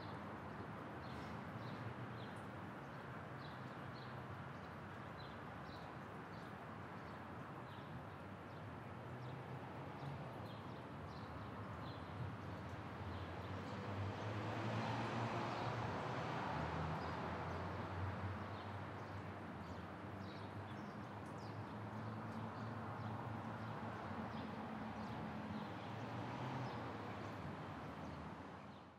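Faint outdoor ambience: small birds chirping now and then over a low background murmur that swells a little around the middle.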